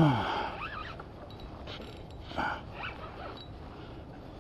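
A spinning reel being cranked and its drag working while a large fish is played on the line, making scratchy, zipper-like winding sounds. Right at the start a short, loud sound drops steeply in pitch.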